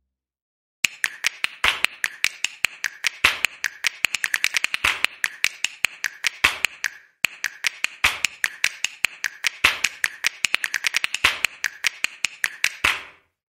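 Rapid knife taps on a cutting board while cherry tomatoes are sliced into quarters: a quick run of sharp clicks with heavier strokes every second or so, pausing briefly about halfway.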